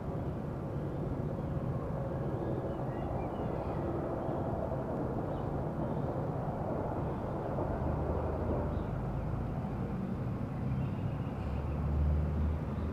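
Steady low outdoor background rumble, swelling briefly twice, the second time loudest, about a second before the end.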